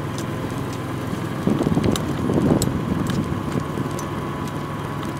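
Golf cart driving over a fairway: a steady motor hum with scattered rattling clicks, louder and rougher for a second or so in the middle.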